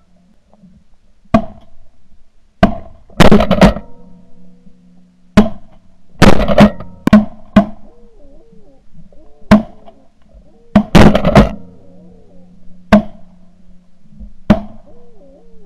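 Shotgun blasts close to the microphone, about a dozen and a half, several in quick strings of two or three shots. Between the shots in the second half there is honking from geese.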